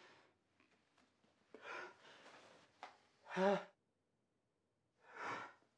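A man crying quietly: shaky breaths, a short choked sob about three and a half seconds in, and another heavy breath near the end.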